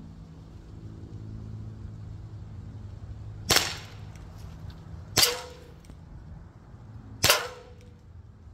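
Three sharp shots from an Umarex Glock 17 Gen3 CO2 blowback BB pistol, about two seconds apart. The second and third are followed by a brief metallic ring, typical of a steel BB striking a metal can.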